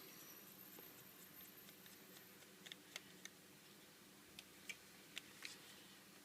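Near silence with a few faint, sharp clicks from a small T5 Torx screwdriver working the tiny screws out of a mobile phone's back housing, in two small clusters from about three seconds in.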